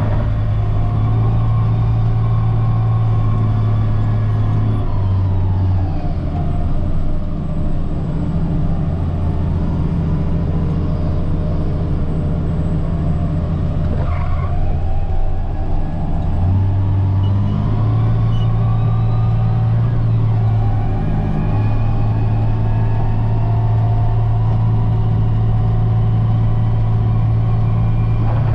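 Caterpillar 938G wheel loader's diesel engine running steadily while it plows snow, heard from the cab. About five seconds in the engine note drops lower and stays down until past the middle, then rises back, with a fainter whine falling and later rising along with it.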